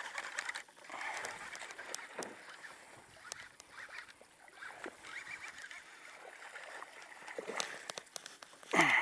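Baitcasting reel being cranked in stretches while a hooked largemouth bass is fought, with a louder splash near the end as the fish thrashes at the surface.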